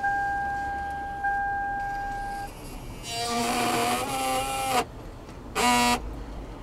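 Electronic warning chime of a 2002 Lexus, a steady mid-pitched tone struck twice about a second apart and cutting off after about two and a half seconds. Two louder, harsh sounds with a wavering pitch follow, a longer one and a short one near the end.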